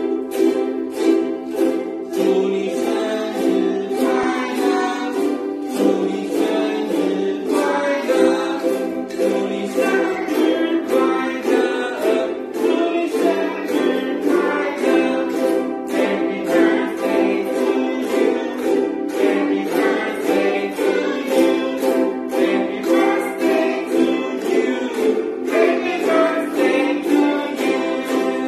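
A group of children strumming ukuleles together in a steady rhythm, with voices singing along from about two seconds in.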